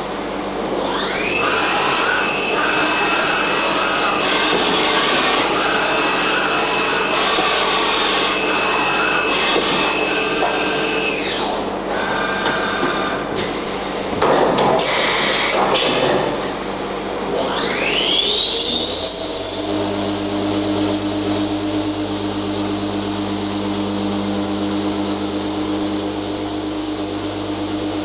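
Wintec MV-40 vertical machining centre's spindle spinning up to 6000 RPM with a rising whine and holding a steady high whine, winding down about eleven seconds in. After a few seconds of shorter machine sounds, it spins up again near eighteen seconds and runs steadily at speed.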